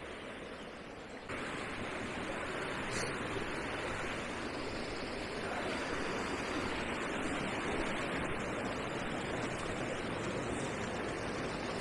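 A brook rushing over stones: a steady hiss of running water that gets suddenly louder about a second in.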